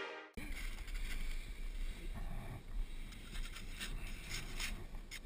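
Background music cuts off just after the start, leaving an action camera's own sound: a steady low wind rumble on the microphone with scattered short scrapes and crunches of snow as the rider moves close to the camera.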